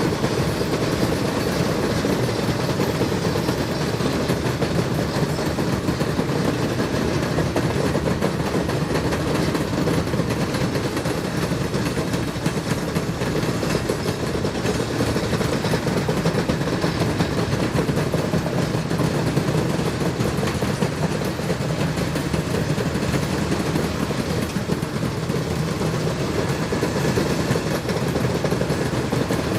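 ALCo S1 diesel switcher locomotive's engine running steadily as it works the cars.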